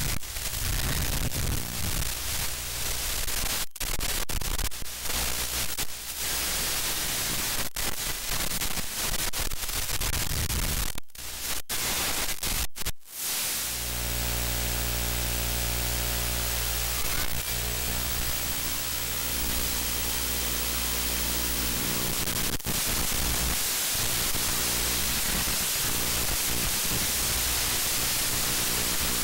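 Static hiss with a low buzz from an analog 5.8 GHz FPV video link's audio channel, steady apart from a few brief cutouts, most of them bunched a little before the halfway point.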